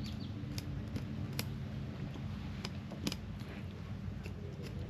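Fillet knife tip scraping and clicking against the rib bones of a striped bass as it is filleted: a run of short, irregular ticks over a steady low hum.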